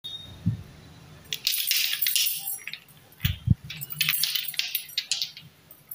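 Small plastic paint pots clattering and clinking against each other as a handful is jostled. The rattling comes in two spells, with a couple of dull knocks.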